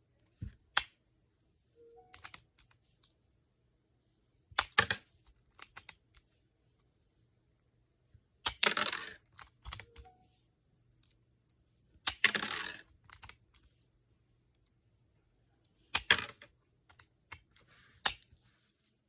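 Lego bricks handled and pressed together: sharp plastic clicks in small clusters every few seconds, with two longer rattles of loose pieces partway through.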